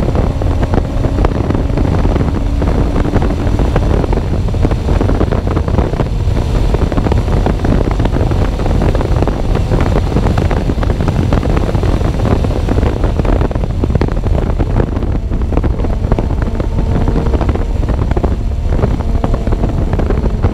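Heavy wind buffeting on a bare GoPro microphone in an open-top Lotus Elise 111R at speed. The car's Toyota 1.8-litre four-cylinder engine, fitted with a Larini Stage 2 exhaust, is heard faintly beneath it, its note shifting in pitch.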